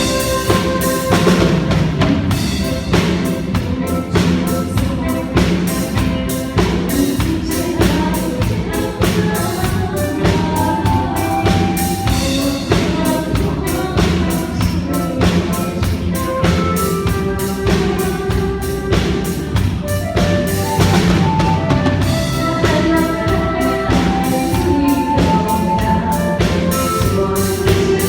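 Live band music with a drum kit keeping a steady beat under a melody.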